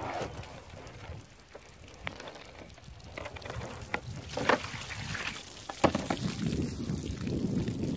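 Water pouring and splashing out of a tipped plastic gallon jug onto a plastic table, starting about three seconds in, with a few sharp clicks and knocks from the handled jug.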